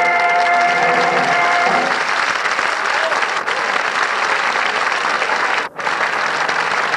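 Audience applauding after a folk dance, over the last held chord of the band's music, which stops about two seconds in. The applause goes on steadily and cuts out for a split second about two thirds of the way through.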